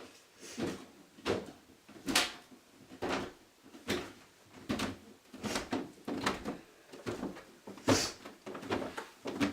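Footsteps at a slow walk, a regular series of soft thuds about one every 0.8 seconds, in a small room.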